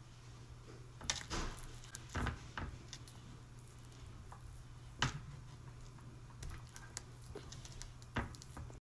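Hands patting and pressing soft dough on a plastic cutting board: a few scattered light taps and soft squishes over a low steady hum.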